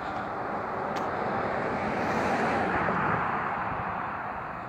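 A passing vehicle: a rushing noise that swells over about two seconds and fades away near the end.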